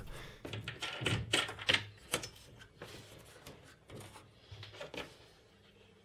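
Wooden clamps and black plastic wing knobs being handled and set down on a CNC machine's bed: a series of light clicks and knocks that thin out and stop about five seconds in.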